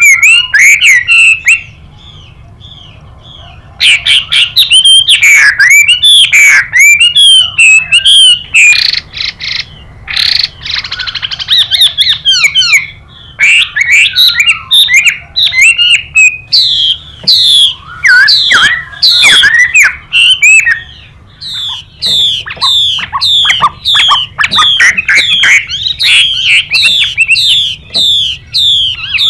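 Chinese hwamei singing a loud, fast stream of slurred whistled notes, with a female's harsh 'xùy' calls mixed in. There is a short lull about two seconds in, then the song resumes.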